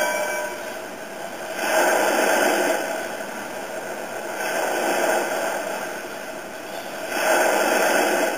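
Breaking-wave sound effect from a model towboat's Graupner 2351 sound module: a rush of surf noise that swells and ebbs about every two and a half seconds.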